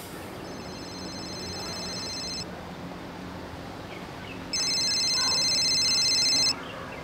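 Mobile phone ringing twice with a high electronic ringtone. Each ring lasts about two seconds, and the second, starting past the middle, is louder.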